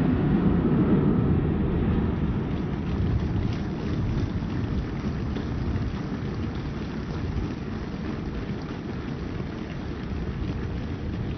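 Low, steady rumble of Panavia Tornado jets, slowly fading as the formation flies away.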